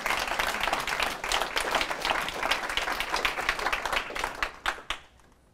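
Audience applauding, with many quick overlapping claps that die away about a second before the end.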